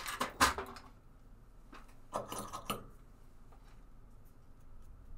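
Clinks and knocks of small hard tools and objects being handled on a workbench: a sharp clatter at the start, another cluster about two seconds in, then a few faint ticks.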